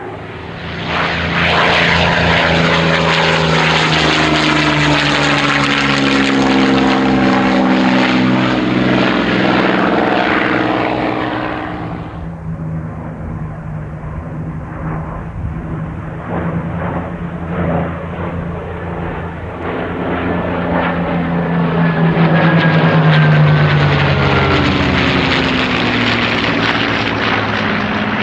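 Three propeller-driven aircraft flying past in formation, their engines loud with a pitch that slides down as they go by. The sound dies back about halfway through and builds again for a second pass near the end.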